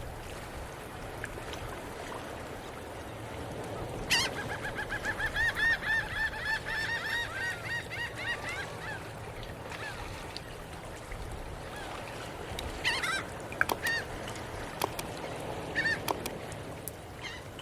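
Geese honking: a run of quick repeated calls for about five seconds starting around four seconds in, then a few scattered calls, over a steady low background noise.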